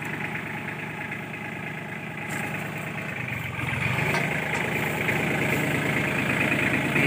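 Farm tractor's diesel engine running steadily, getting louder from about halfway through.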